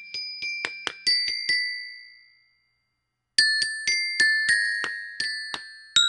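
Glockenspiel struck with a mallet: single high, ringing notes at an uneven pace, one left to ring out, then about a second of dead silence before a quicker run of notes.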